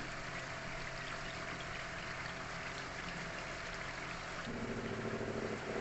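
Chicken tail pieces simmering and frying in oil and their own released water in an aluminium kadai, a steady bubbling hiss. A faint low hum comes in about four and a half seconds in.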